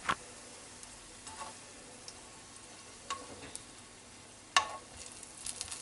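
Garlic cloves sizzling faintly in hot olive oil in a nonstick frying pan, with a few sharp clicks of metal tongs against the pan as the cloves are lifted out; the loudest click comes about four and a half seconds in.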